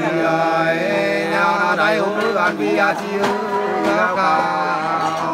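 A man singing sli, the Nùng antiphonal folk song, with no instruments, in long held notes that bend and waver.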